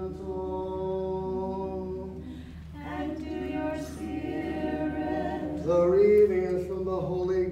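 Unaccompanied Orthodox liturgical chant: a small church choir sings slow, long-held notes with no instruments, growing loudest about six seconds in.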